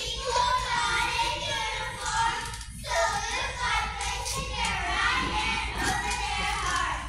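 A large group of children singing together, in two phrases with a short break about three seconds in.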